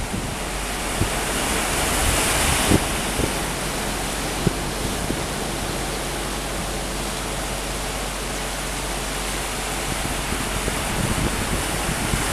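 Steady wind hiss outdoors, with a gust about two seconds in and low buffeting of wind on the microphone near the start and end.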